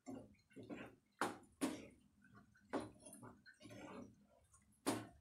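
A spatula stirring a thick curd-and-cucumber mixture in a pan: soft wet squelching with irregular scrapes and taps of the spatula against the pan, a few of them sharper.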